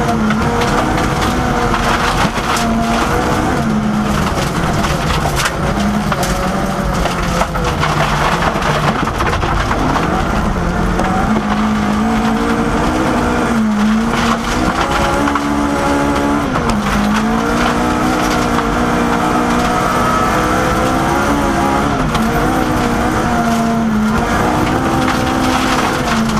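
Inside the cabin of a Mk II Ford Escort rally car at full speed on gravel: the engine runs high in the revs, its pitch dropping and climbing again at gear changes a few times, over a constant rush of tyres on loose gravel with stones clicking against the bodywork.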